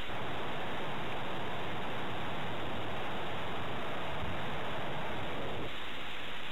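Steady rushing hiss with no tones in it, which drops away abruptly near the end.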